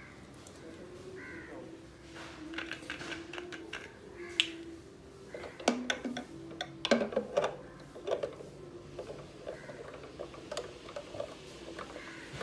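Hard plastic clicking and knocking as a PET bottle is fitted and screwed onto the nozzle of a Mr Butler soda maker, with the sharpest knocks about six to seven seconds in, over a faint steady tone.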